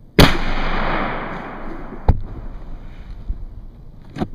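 A single 20-gauge shotgun slug shot, loud, its report rolling and dying away over about two seconds. Two sharp knocks follow, about two and four seconds in.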